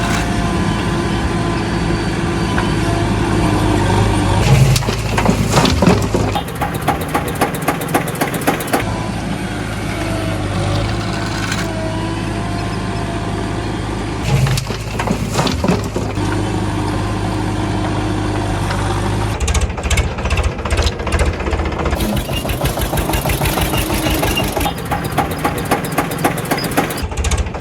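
Diesel tractor engine running. Its note changes abruptly every few seconds, between a steady idle and a faster, rougher beat.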